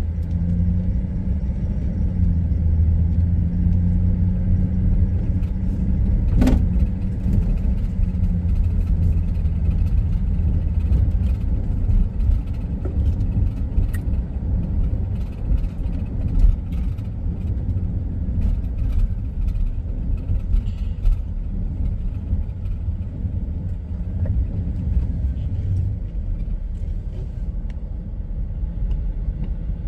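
A car being driven on an asphalt road, heard from inside: a steady low rumble of engine and tyres, with a low hum through the first several seconds. There is a single sharp click about six seconds in.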